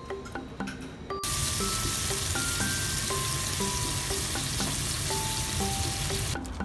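A mozzarella-filled sausage sizzling in hot fat in a frying pan. The sizzle starts suddenly about a second in and cuts off abruptly near the end, with light background music throughout.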